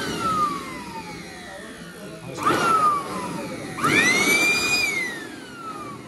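A 400 W handheld electric blower-vacuum with a hose fitted is switched on in short bursts. Each time its motor whines up quickly, then winds down in a slowly falling whine. This happens twice: the second burst is held at full speed for about a second before it coasts down.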